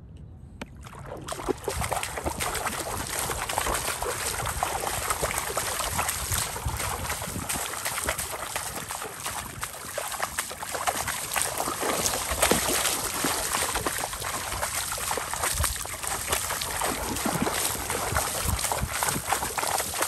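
Footsteps splashing and sloshing through shallow river water, a dense run of irregular splashes; faint at first, louder from about a second in.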